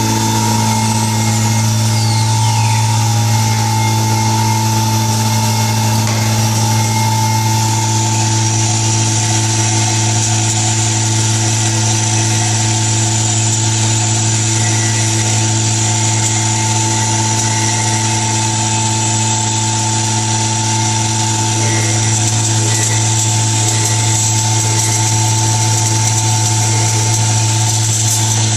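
YL 12242R+B CNC wood router running, a steady machine hum with a falling whine about a second in and a higher whine that joins about eight seconds in.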